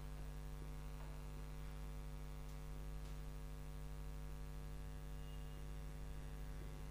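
Steady electrical mains hum with many even overtones, and a few faint short scratches of a marker pen on a whiteboard.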